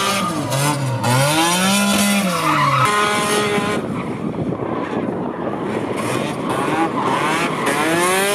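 Supercharged BMW E46 M3's straight-six engine revving up and down while drifting, tyres squealing and skidding. About three seconds in the clear engine note gives way to a dense rasping mix of tyre and engine noise, and the revs climb again near the end.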